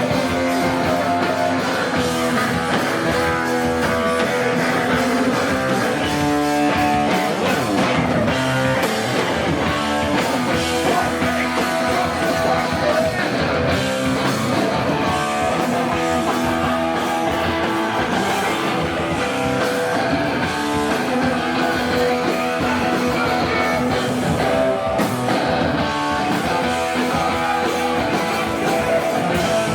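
Hardcore band playing live: loud electric guitars with bass and drum kit, a dense and steady wall of sound with no break.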